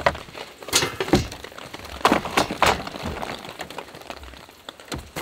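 Wooden camping gear knocking and clattering as boards are handled and pulled out of the back of a van: a series of sharp knocks, with several close together about two seconds in.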